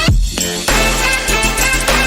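Background music track with a heavy bass line and a steady electronic beat.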